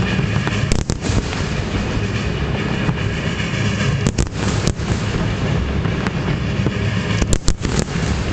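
Fireworks display: sharp bangs of shells bursting, a pair about a second in, a few around four seconds in and a quick cluster near the end, over a steady low rumble.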